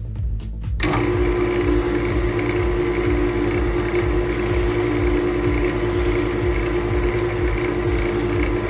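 Wood lathe turning a spalted beech bowl, with a steady tone and the hiss of a tool cutting the wood, starting about a second in. Background music with a steady beat plays underneath.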